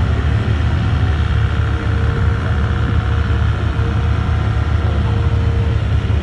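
Off-road tube buggy's engine running with a steady low rumble as the buggy crawls straight up a near-vertical dirt wall.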